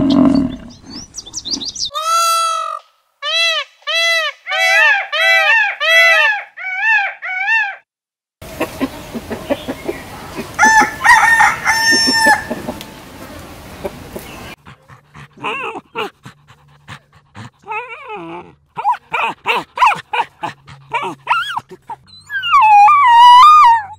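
A string of separate animal calls: a run of short repeated chirps, then chickens clucking with a rooster crowing about halfway, then a long wavering whine near the end, the loudest sound here, which fits the dog on screen.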